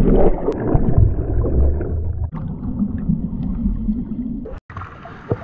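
Ocean wave breaking over a waterproof action camera: a loud, muffled rush of whitewater, then the duller churning of turbulent water as the camera goes under.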